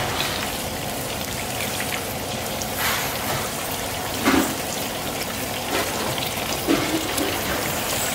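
Meatballs sizzling on a grill: a steady hiss of cooking fat, with a few louder pops.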